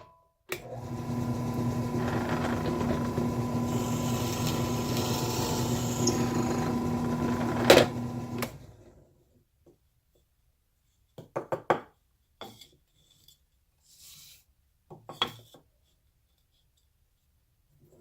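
Drill press motor starts, runs steadily for about eight seconds while a bit is drilled into wood, then switches off and winds down. A few short knocks of wood being handled follow.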